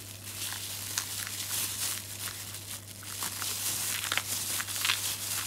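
Disposable plastic gloves crinkling, with small scrapes and clicks as a spoon scoops the seeds out of halved jalapeños.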